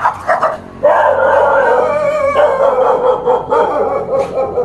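Dog giving a few short barks, then one long howling cry lasting about three and a half seconds.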